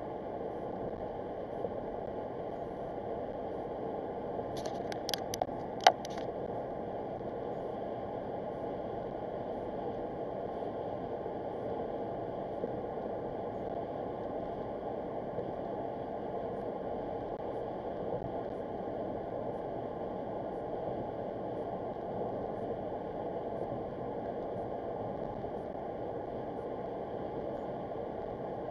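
Steady road and tyre noise of a car at highway speed, heard inside the cabin through a dashcam's microphone. A short run of sharp clicks comes about five seconds in, ending in one louder click.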